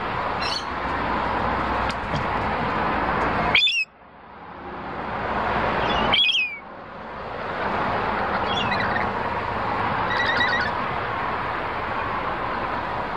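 Lorikeets giving several short, shrill squawks, the last a rapid stuttering series of notes, over a steady rushing background noise that cuts out suddenly twice and swells back over a couple of seconds.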